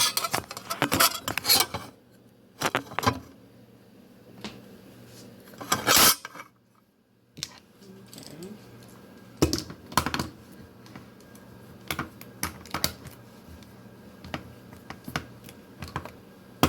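A manual can opener being handled and worked on a metal can of tomato paste: irregular metallic clicks and rattles in clusters, busiest in the first couple of seconds and again around six seconds in, then sparser clicks after a brief quiet gap.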